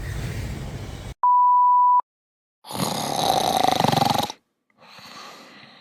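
A censor bleep: a steady pure beep, cut in sharply about a second in and lasting under a second. A loud burst of noise follows about a second later and lasts about a second and a half.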